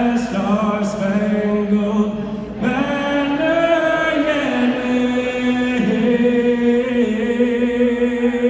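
A national anthem sung over the arena sound system, the singer holding long, drawn-out notes with a brief breath between phrases.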